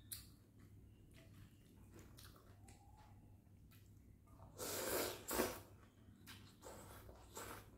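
Rice vermicelli noodles being slurped from a bowl of broth: one long, loud slurp about halfway through, followed by a couple of shorter, softer slurps and chewing.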